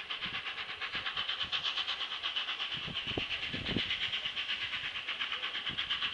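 Steam locomotive Tornado, a Peppercorn A1 Pacific, approaching from a distance at speed: a rapid, even, pulsing hiss that grows slowly louder.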